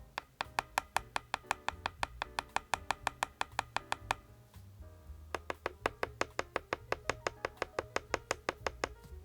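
SKYLOONG GK75 mechanical keyboard with optical yellow switches and PBT keycaps, keys struck in fast, even runs of clicky keystrokes at about seven or eight a second. There are two runs with a short break about halfway, and background music plays underneath.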